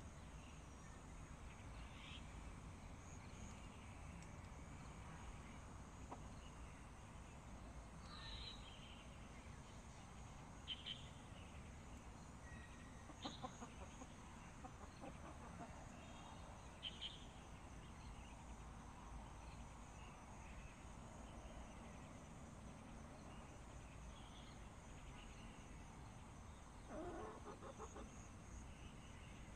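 Faint, scattered clucks and short calls from Sanhuang hens, with one louder call near the end, over a low steady background rumble.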